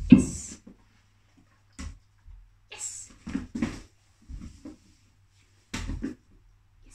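A dog moving about on carpet and nosing at an upturned clear plastic storage box during treat training: a handful of short scuffles and knocks, the loudest just after the start.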